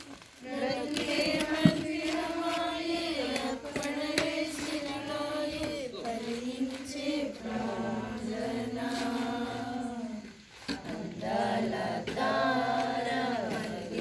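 A group of voices singing together in long held notes, breaking off briefly about ten seconds in. There is a single sharp tap about two seconds in.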